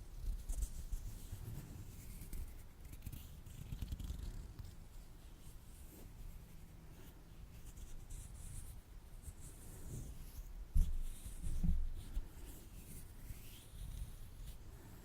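Latex-gloved hands coated in lotion rubbing and pressing together, giving soft sticky rustling and ticking sounds, with two dull bumps about two-thirds of the way through.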